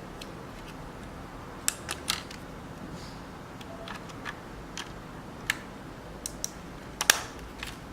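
Small plastic clicks and taps from handling a digital camcorder while an SD card is pushed into its card slot. The clicks are scattered and the sharpest one comes near the end.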